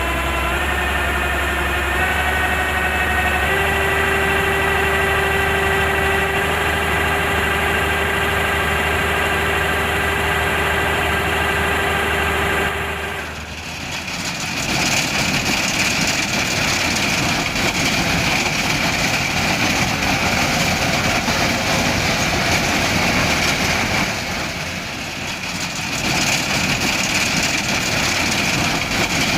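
Kubota combine harvester running. First a steady engine drone whose pitch steps up a few times in the opening seconds, then about 13 seconds in a rougher, noisier machine sound with a high whine that dips briefly twice.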